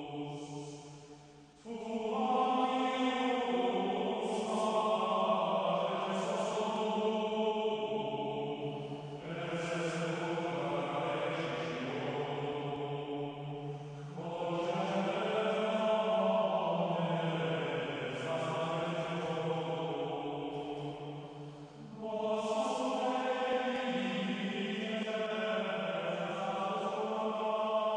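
Background music of slow chanted voices, long held notes in phrases of several seconds each, with short breaks between phrases.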